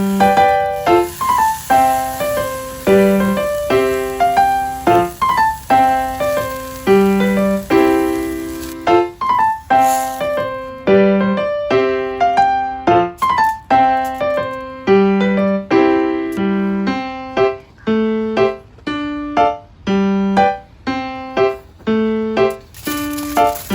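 Background music: a piano or electric-piano tune of steady plucked-sounding notes over a repeating low bass note.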